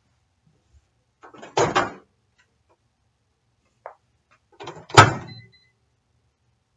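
Microwave oven door opened with a clatter, a light click as the cup is set inside, then the door shut with a sharp slam about five seconds in, the loudest sound.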